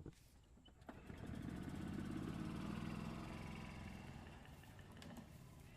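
A motor vehicle engine running nearby, swelling to its loudest a couple of seconds in and then slowly fading.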